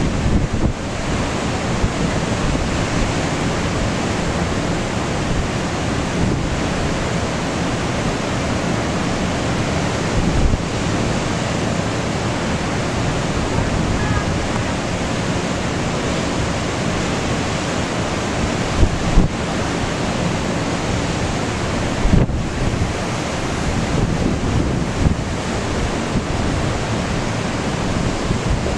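Tropical-storm wind buffeting the microphone over the steady rush of heavy surf breaking below. Gusts strike the microphone as brief low thumps several times.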